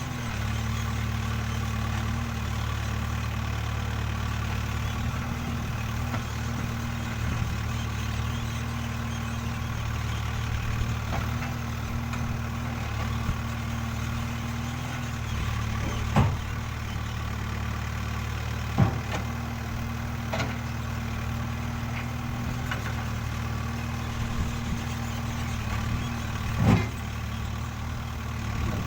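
Backhoe loader's diesel engine running steadily at low revs, with three loud clanks, two about a second and a half apart past the middle and one near the end.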